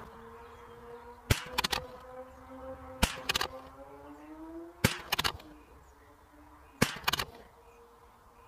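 Four sharp gunshot cracks from a .22 rimfire rifle, about two seconds apart, each followed by a short rattle of smaller cracks. Under them a fly buzzes steadily, its hum drifting up in pitch partway through.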